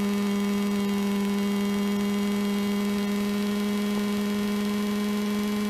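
Robin DR400's piston engine and propeller running steadily at low taxi power, heard from inside the cabin as an even hum.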